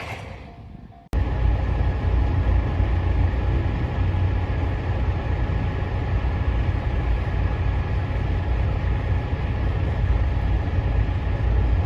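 Steady low rumble of a running vehicle, starting abruptly about a second in and holding even, with a faint steady tone above it.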